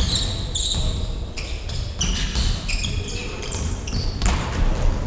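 Basketball game on a hardwood gym floor: sneakers squeaking in many short, high chirps as players run and cut, with the ball bouncing, and a louder hit about four seconds in.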